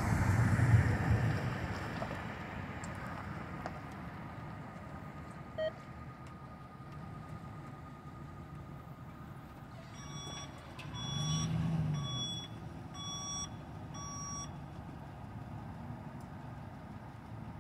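A hi-rail pickup truck drives past, then its backup alarm beeps steadily, about one beep every 0.7 s for some four seconds, as the truck reverses at the crossing. Its engine briefly rises under the beeps.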